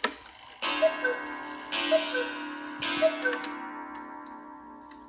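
1867 Johann Beha cuckoo clock striking the hour: three gong strikes about a second apart, each with a two-note cuckoo call, high then low. The gong keeps ringing and fades slowly after the last call.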